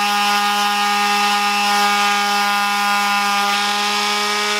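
Electric palm sander clamped upside down in a vise, its motor running with a steady whine while a knife blade is held against its sandpaper pad to sharpen it.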